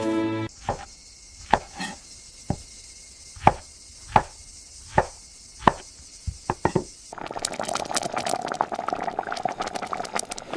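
Knife chopping on a cutting board: about ten separate, unevenly spaced strokes. About seven seconds in the chopping gives way to a dense, steady crackling sizzle.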